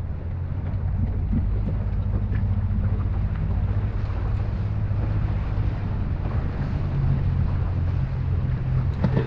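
Boat motor running steadily with a low hum, wind buffeting the microphone; the engine note shifts about seven seconds in.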